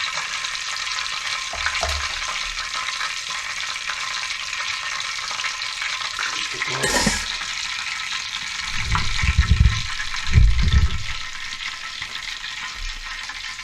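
Steady sizzling hiss of hot oil in a casserole of fried chicken, the electric cooker just switched off. Low thumps of handling come twice, about nine and ten and a half seconds in.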